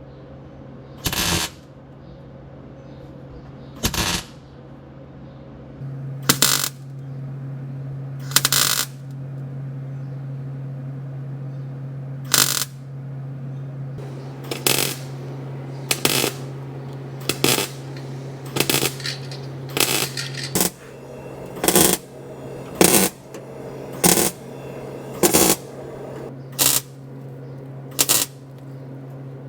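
Welder laying short stitch welds on the sheet-steel seams of a truck's transmission tunnel: about seventeen brief crackling bursts, each under half a second. They are spaced out at first and come roughly once a second in the second half. A steady low hum runs underneath from about six seconds in.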